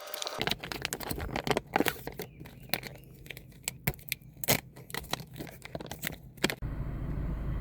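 Irregular crinkling and clicking handling noises, with a steady low hum starting near the end.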